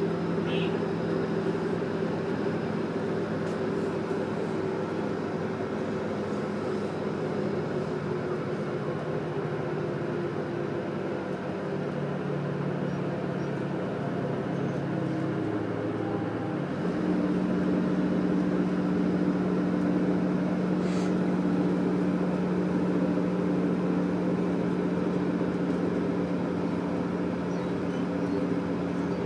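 Diesel passenger train running, heard from inside the carriage: a steady rumble with an engine drone. A little over halfway through, the drone shifts pitch and grows slightly louder.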